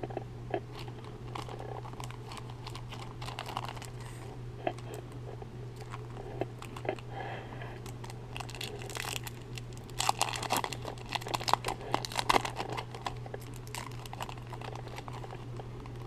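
Foil trading-card pack being torn open and its wrapper crinkled while the cards are handled: a run of sharp crackles and rustles, thickest and loudest from about ten to thirteen seconds in, over a steady low hum.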